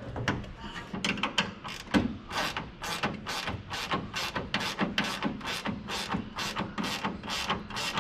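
Ratcheting combination wrench tightening a nut on a bolt: a regular run of sharp clicks, about three a second, starting about two seconds in.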